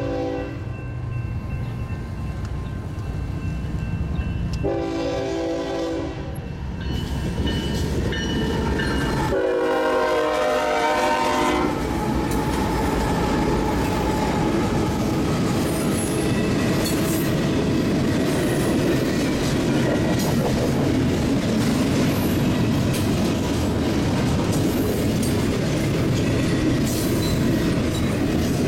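A freight train's air horn sounding a series of blasts for a road crossing: a long blast about five seconds in, a brief one just before eight seconds, and a long one around ten seconds in, over the rumble of the lead GE diesel locomotives. Once the horn stops, the locomotives pass close by and the loaded double-stack container cars follow with a steady clatter of wheels over the rail joints.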